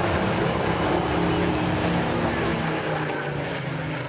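Spitfire PR19's Rolls-Royce Griffon V12 engine running as the aircraft flies past. Its pitch falls slightly, and it begins to fade near the end as the aircraft moves away.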